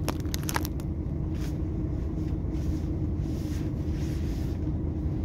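Truck engine idling with a steady low hum heard inside the cab. A rain jacket being handled adds soft rustling, with a few clicks in the first half-second.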